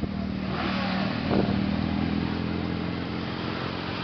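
Several motorcycles passing close by, engines running, with a brief surge in engine noise about a second and a half in.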